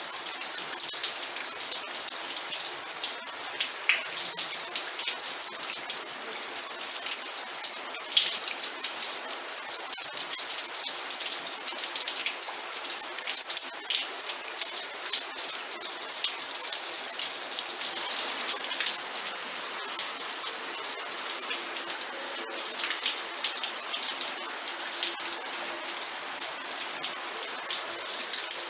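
Steady rain: a dense, even patter of individual drops striking a surface, a bright hiss with little low rumble.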